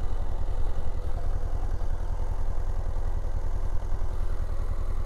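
Motorcycle engine running steadily while riding, a low pulsing rumble with road and wind noise.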